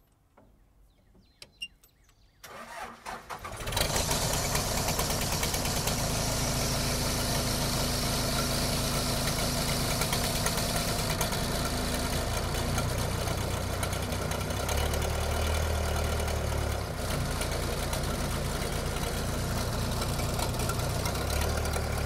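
Case 580E backhoe's diesel engine being started: the starter cranks briefly about two and a half seconds in, the engine catches about a second later, and then it runs steadily at idle.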